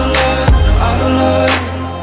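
Background music track with a steady beat and heavy bass.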